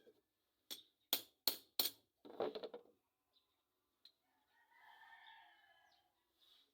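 A rooster crowing: one drawn-out call lasting about a second and a half, past the middle. Earlier, four sharp knocks come in quick succession, followed by a short lower-pitched cluck-like sound.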